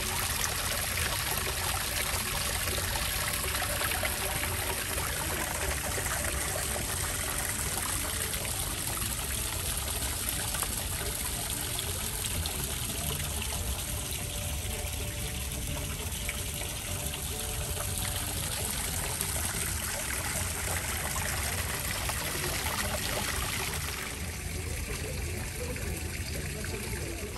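Water pouring steadily from a stone ledge into a pool: an indoor rock-wall fountain, slightly quieter near the end.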